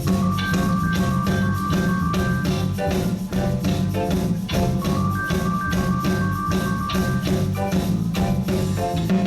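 Live reggae band playing an instrumental passage: a steady bass line and drum kit, with higher notes held for a second or two over them twice.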